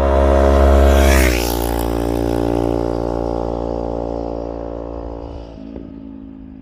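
Yamaha R3's parallel-twin engine at steady throttle as the motorcycle passes by: the note grows louder, drops in pitch about a second in as the bike goes past, then fades away.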